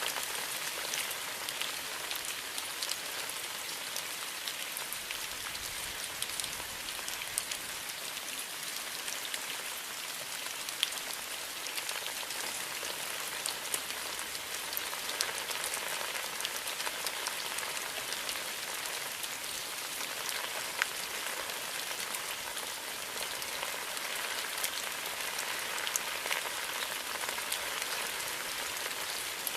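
Steady rain falling: an even hiss with many small drop ticks scattered through it, holding constant throughout.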